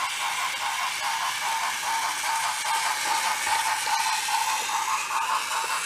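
Small electric motor and plastic gearbox of a battery-powered wooden-railway toy locomotive whirring steadily, with a fine rattle of wheels clicking along wooden track.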